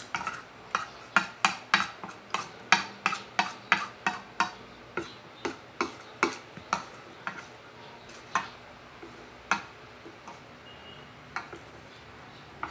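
Metal spoon and fork clinking against a ceramic plate while gathering up the last noodles: quick clinks about three a second at first, thinning to occasional ones near the end.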